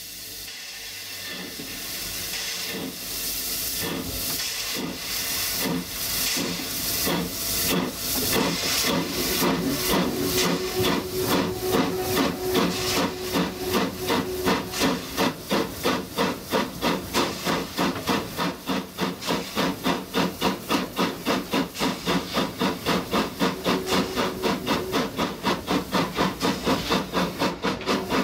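Exhaust of the LB&SCR A1X 'Terrier' tank engine No. 32678 getting under way: its chuffs start roughly one a second and quicken steadily to about four a second, over a continuous steam hiss.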